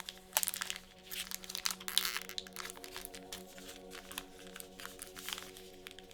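Crinkling and crackling of trading-card booster pack packaging being handled and opened, with dense sharp crackles in the first two seconds or so and scattered lighter crinkles after that.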